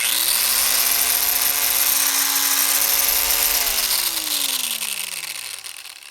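Roto saw motor switched on and spinning up quickly to a steady high whine. It runs for about three and a half seconds, then is switched off and winds down with falling pitch until it stops.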